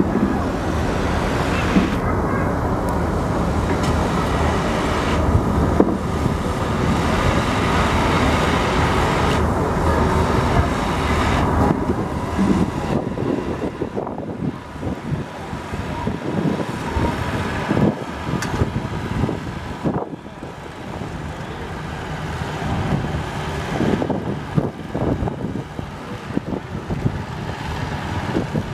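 Farm tractor's diesel engine working hard under load as it drags a weight-transfer pulling sled down the track. It is louder for about the first twelve seconds, then eases.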